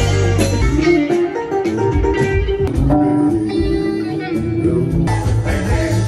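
Music led by a plucked, guitar-like string instrument over a steady bass.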